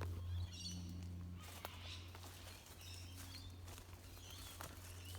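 Faint bush ambience: birds chirping and a few light clicks and rustles of movement through undergrowth, over a steady low hum.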